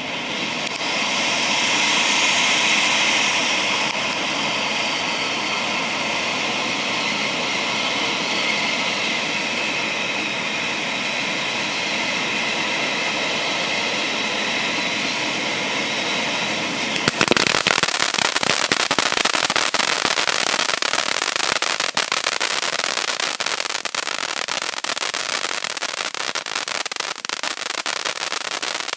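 Firework fountain from a compound-of-fountains cake spraying sparks with a steady hiss that swells over the first few seconds. About seventeen seconds in, the hiss gives way abruptly to dense, fast crackling as the next fountain in the compound fires with crackling stars.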